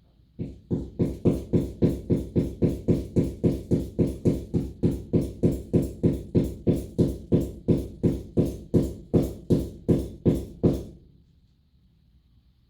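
Rapid, even knocking, about three blows a second for some ten seconds, then stopping: blows struck against the wall to make a hole in it.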